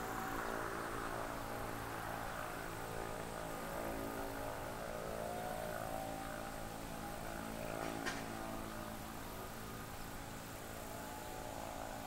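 Steady low mechanical hum with a fixed pitch, like a distant running engine or motor, with one short click about eight seconds in.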